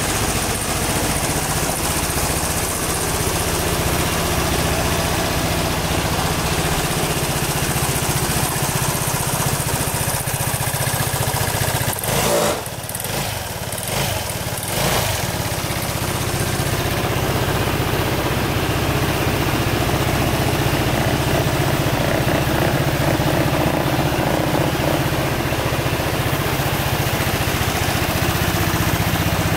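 Piaggio Liberty 125 scooter's single-cylinder four-stroke engine idling steadily, with a brief unsteady dip in level a little before the middle.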